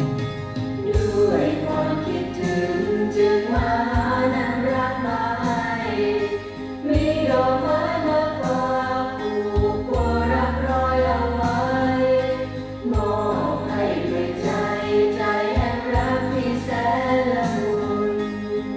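A Thai song played back from cassette on an Akai GXC-310D deck, heard through loudspeakers in the room.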